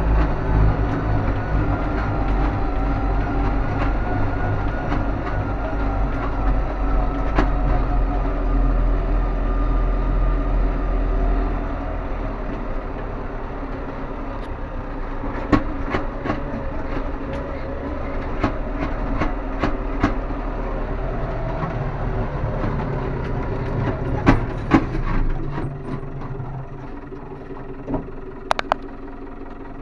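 New Holland tractor's engine running under way over a rough dirt track, heard from inside the cab, with scattered rattles and knocks. The engine gets quieter about a third of the way in and drops again near the end.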